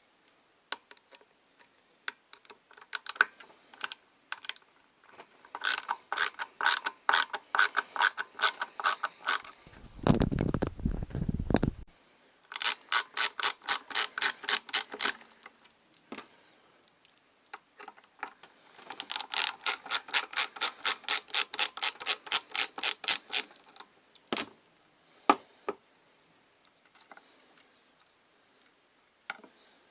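A ratchet clicking in quick even runs, about five or six clicks a second, several runs of a few seconds each. About ten seconds in there is a short low rumble of handling.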